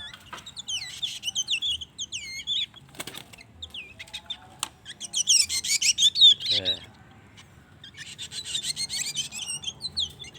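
Birds chirping in rapid high-pitched bursts, three spells of a second or two each, with a short falling low call a little past the middle.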